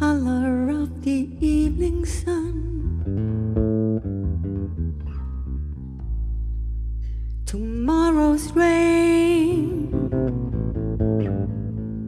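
Live band performing a slow song: a woman sings two phrases over electric bass guitar and guitar, with an instrumental stretch between them carried by the bass line.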